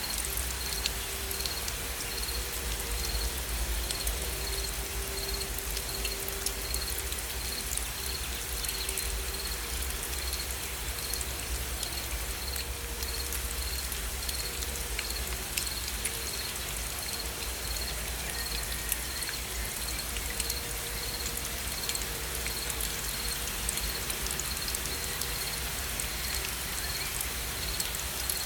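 Steady gentle rain falling, with the ticks of individual drops and a soft low rumble underneath. A faint high chirp repeats regularly, about every two-thirds of a second, throughout.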